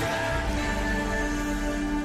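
Background music: held, sustained notes.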